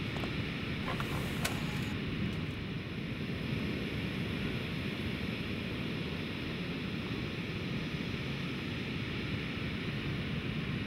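Steady sea surf and wind noise, an even rushing with no distinct wave crashes. A couple of brief faint clicks sound about a second in.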